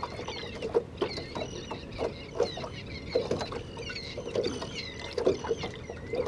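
Water slapping against a small boat's hull in irregular knocks, under many short, high squeaky chirps.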